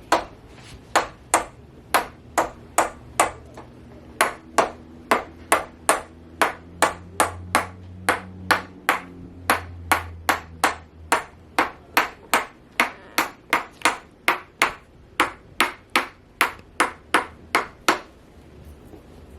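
Chiropractic activator adjusting instrument firing again and again: a long run of sharp, spring-loaded clicks, two to three a second, that stops a little before the end.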